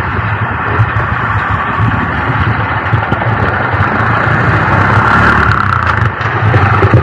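Steady din of motor traffic on a busy road, with a low engine rumble underneath, captured on a poor, noisy recording.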